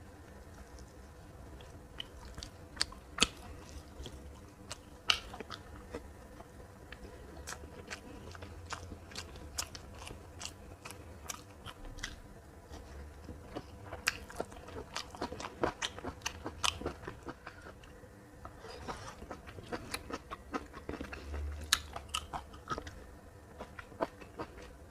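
A person chewing a meal of fried fish, green beans and rice, with many sharp, irregular crunches between softer chewing.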